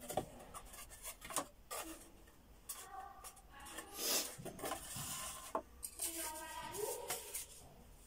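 Thin wooden box panels being handled and fitted together by hand: irregular light wooden knocks, clicks and rubbing as the pieces are set against each other and slotted into place.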